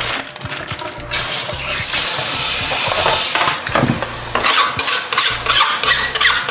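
Kitchen tap water running onto a plastic chopping board as it is rinsed in the sink, starting about a second in, with knocks and clatters of the board against the sink.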